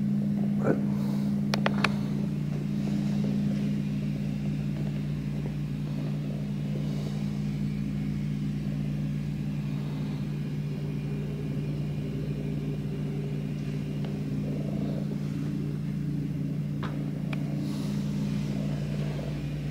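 A steady low hum made of two unchanging low tones, with a few brief clicks or knocks about a second in and again near the end.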